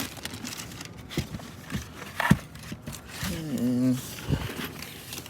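Radiator parts being handled: a run of light knocks and clicks with rustling, the sharpest about two seconds in. A drawn-out spoken "and" near the end.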